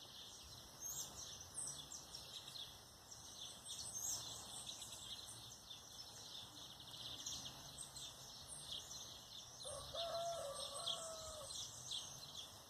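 Morning bird chorus: many small birds chirping and twittering high and thin. A rooster crows once about ten seconds in.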